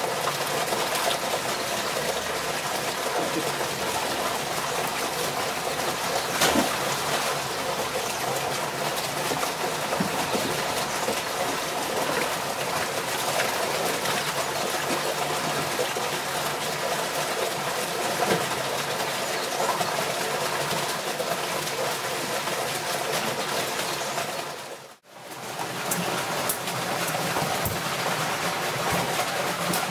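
Steady rush of running water. It drops out for a moment about 25 seconds in, then comes back.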